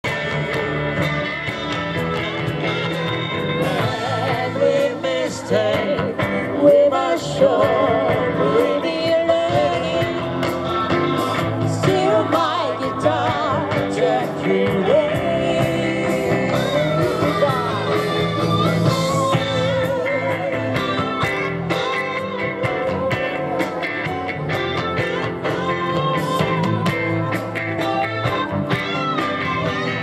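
Live rock band playing a song on electric guitars, bass guitar and drum kit.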